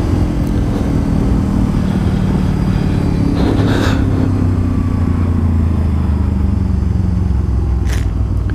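Motorcycle engine running steadily while riding, its pitch shifting gently as the revs change, with a short rush of wind noise about three and a half seconds in.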